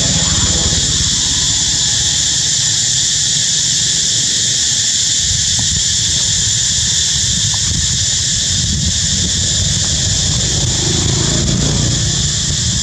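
Steady, high-pitched insect chorus droning without a break, with a constant low rumble underneath.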